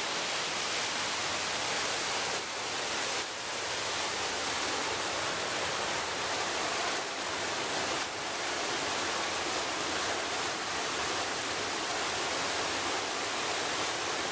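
Small stream tumbling over rocks: a steady rush of water.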